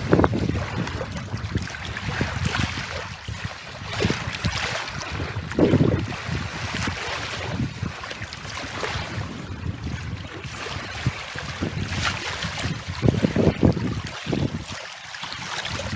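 Wind buffeting the microphone in gusts, over small waves lapping in shallow water at the shore.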